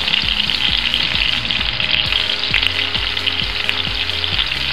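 Chopped onions, garlic and ginger sizzling steadily in hot oil in a skillet on medium-high heat.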